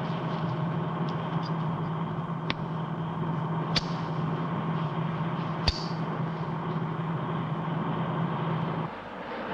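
Steady low hum of a car running, heard from inside the cabin, with three sharp clicks between about two and six seconds in as a cigarette lighter is struck. The hum drops away near the end.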